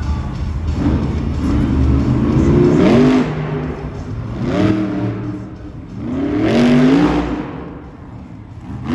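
Monster truck's supercharged V8 revving hard three times, each rev a rising whine, as the truck tips up onto its front wheels in a nose wheelie.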